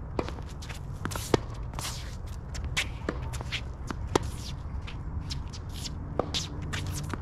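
Tennis groundstroke rally: sharp racket-on-ball hits and bounces, about one every second and a half, with shoes scuffing and shuffling on the court in between.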